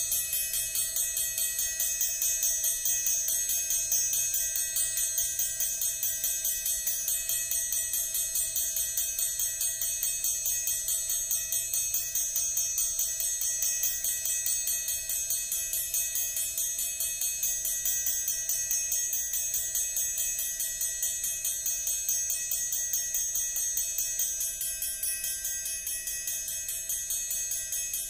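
Amplified orchestral triangle tapped with a metal beater in a rapid, even stream of strokes, its bright high overtones ringing on continuously.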